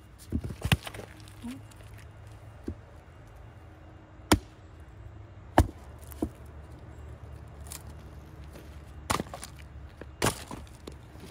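Firewood being split with an axe: about seven sharp wooden chopping strikes, spaced unevenly one to a few seconds apart, as split pieces drop onto the woodpile.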